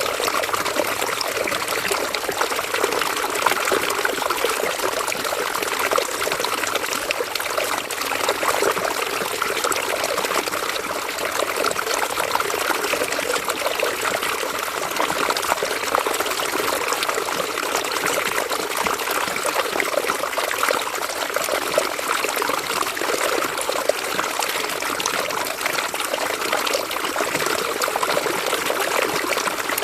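River water running steadily over rocks, a continuous babbling and trickling with no change in level.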